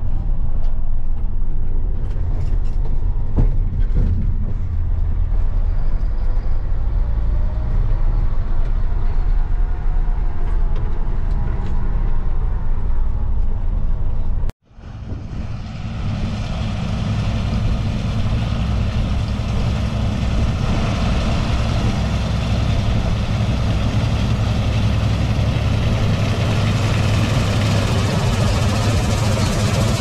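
A vehicle engine running steadily. About halfway through, the sound drops out for an instant, then comes back as the engine with a strong hiss over it.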